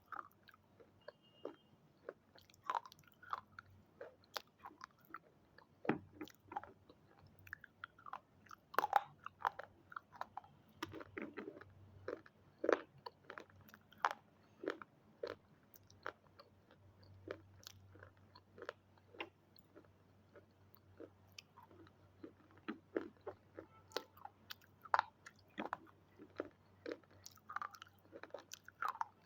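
A person chewing and biting crunchy red triangle-shaped snacks close to the microphone: a steady stream of irregular sharp crunches and crackles, a few per second.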